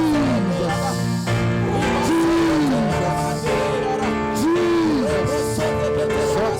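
Slow worship music: sustained chords held underneath while a melody line plays three long phrases, each rising and then falling away.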